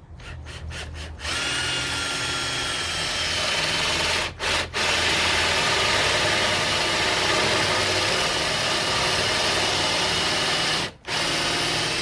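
Power drill boring a concealed-hinge cup hole into a cabinet door through a hinge jig. It starts with a few short trigger bursts, then runs steadily, stopping briefly about four seconds in and again near the end.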